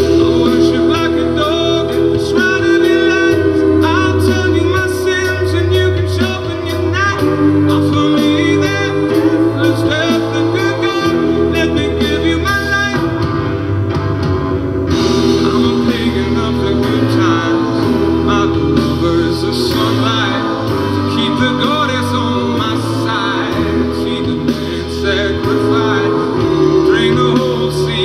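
A recorded song: a singing voice over guitar and bass.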